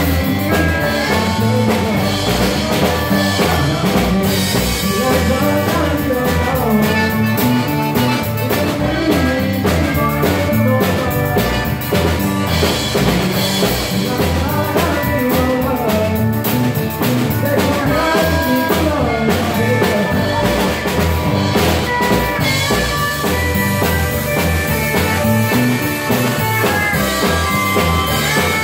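Live Cajun band playing: a diatonic button accordion leads over drum kit, electric bass, acoustic guitar and steel guitar, with a steady dance beat.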